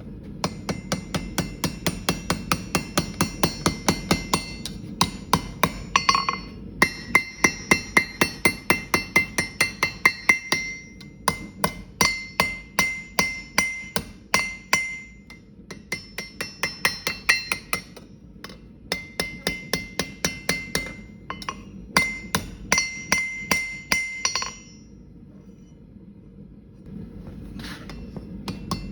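Hand hammer forging steel on an anvil: quick runs of blows at about four a second, with the anvil ringing after each strike and short pauses between runs. The blows stop for a few seconds near the end. A low steady hum runs underneath.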